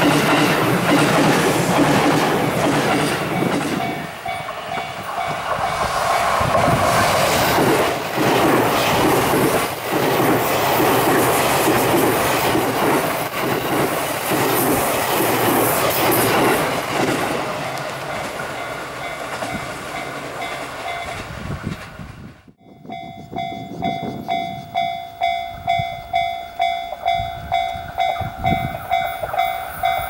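An E257-series electric limited express passes close by at speed, its wheels clacking over the rail joints. It ends abruptly about two-thirds through, and a level-crossing warning bell rings about twice a second.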